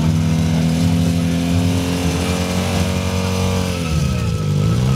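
Motorcycle engine held at high, steady revs during a burnout, the revs dipping and climbing back about four seconds in.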